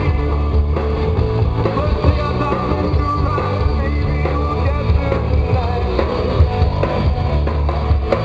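Live rock band playing loudly on stage during a sound check: drum kit and guitars driving a steady rock groove.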